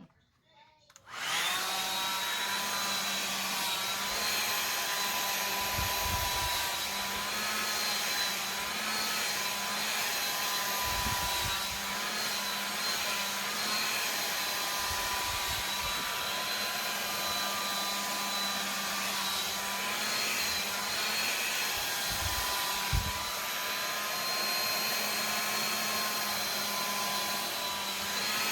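A Conair Ion Shine hair dryer switches on about a second in and runs steadily on its high setting: a loud whirring rush of air with a steady whine. A few low thumps break in briefly.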